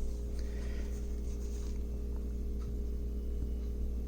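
Steady low electrical hum, with a faint soft rustle in the first two seconds.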